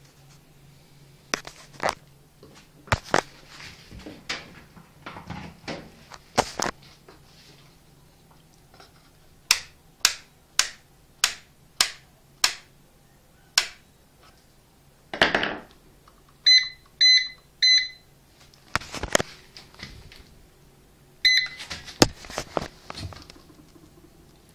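Hansa AWP510L washing machine electronics with the control board exposed: a series of sharp clicks, at one point about two a second, then three short electronic beeps in quick succession and, a few seconds later, one more beep.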